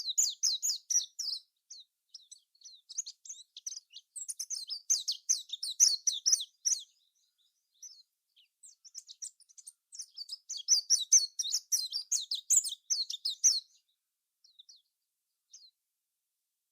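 Birds chirping and twittering in quick high-pitched runs, in two long bouts that thin out to a few single chirps near the end.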